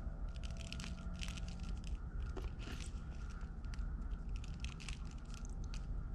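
Pink model-scenery granules rubbed between fingers and sprinkled over a model tree's branches, with an irregular run of small crackles and ticks as the bits crumble and drop onto the tray.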